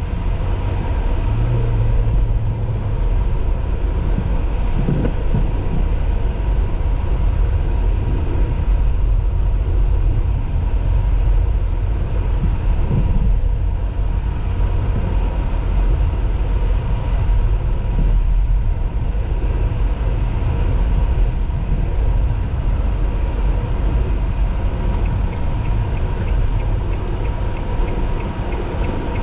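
Car driving through a snowstorm: a loud, steady low rumble with a faint steady whine above it.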